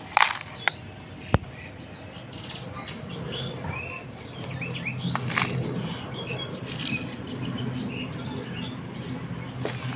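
Small birds chirping and twittering throughout. In the first second and a half comes a short rattle and two sharp clicks, as a plastic toy shovel tips soil into a plastic toy dump truck's bed and knocks against it.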